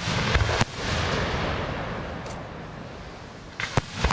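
Aerial firework shells bursting: two sharp bangs about half a second in, then a long noisy wash of echo that slowly fades, then a quick run of three bangs near the end.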